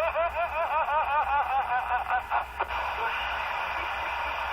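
CB radio transmission carrying a rapidly warbling, chirping sound, about six rise-and-fall chirps a second. It lasts about two seconds and ends in a few clicks as the transmission drops. Steady radio static hiss follows.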